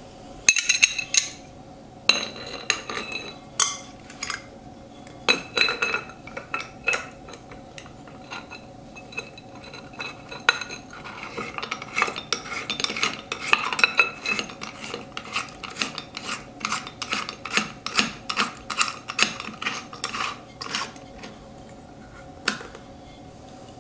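Clear glass pendant lamp shade clinking and tapping against its threaded socket as it is fitted on by hand: scattered light clinks with a short glassy ring, thickest in a busy run about halfway through, and one last tap near the end.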